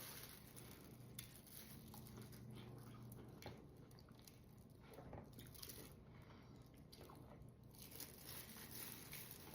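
Faint biting and chewing of a chamoy-coated dill pickle, with a few soft crunches and clicks.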